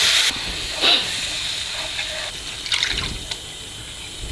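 Water hitting a hot pan of fried masala sizzles loudly, then cuts off sharply just after the start. A softer sizzle follows as a wooden spatula stirs the thinning gravy, scraping the pan a few times.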